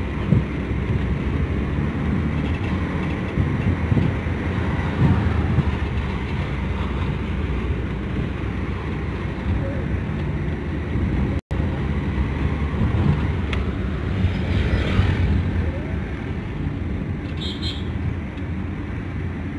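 Steady low rumble of a car's engine and tyres heard from inside the cabin while driving, with a brief dropout about halfway through.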